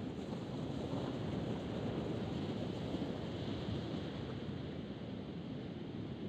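Steady wind blowing on the microphone, with surf washing on the beach underneath.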